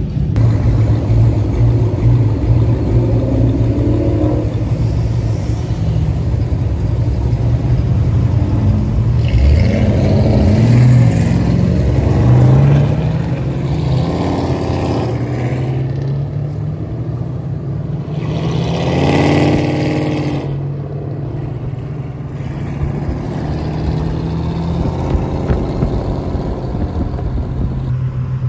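Ford Shelby GT500's V8 running while driving: a steady engine drone with several rises in revs as it accelerates.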